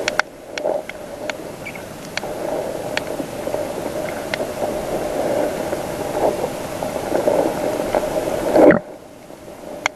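Underwater noise heard through a submerged camera: a steady rushing water sound with scattered sharp clicks. It cuts off abruptly about nine seconds in, as the camera comes out of the water.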